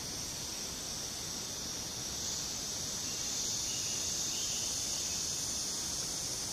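Rainforest insect chorus: a steady, high-pitched buzzing drone that grows a little louder about two seconds in.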